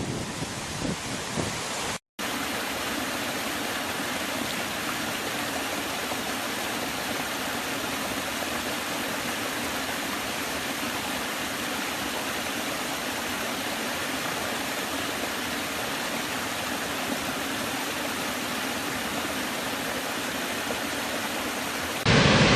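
Steady rushing of a waterfall, an even hiss of falling water, which starts after a brief drop to silence about two seconds in.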